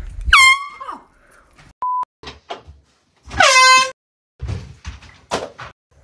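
Handheld canned air horn going off twice in loud blasts of about half a second each; the pitch drops as each blast starts, and the second is lower than the first. A short steady beep sounds between them, and a few knocks and thumps follow the second blast.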